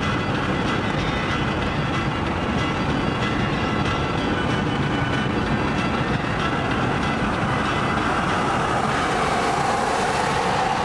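Steady road noise inside a car's cabin at highway speed: tyre rumble and engine drone. A higher hum grows louder near the end.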